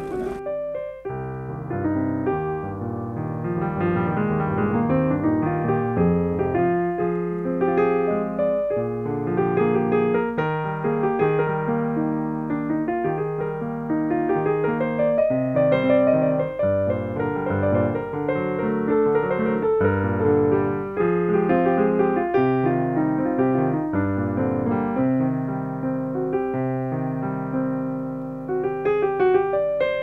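Piano music, coming in just after speech cuts off at the start.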